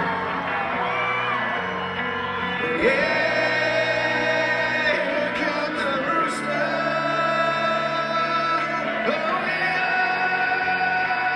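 Live rock band playing, with electric guitars and a male lead vocal holding long notes, and some crowd shouting.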